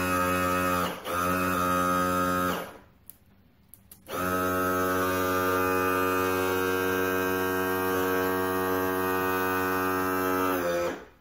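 Outboard power trim and tilt unit's electric pump motor running with a steady hum, lowering the motor. It stops for about a second and a half with a few clicks, then runs again and cuts off near the end.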